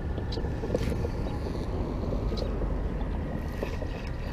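Wind buffeting the microphone, a steady low rumble, with a few faint clicks near the start, about a second in and about two and a half seconds in.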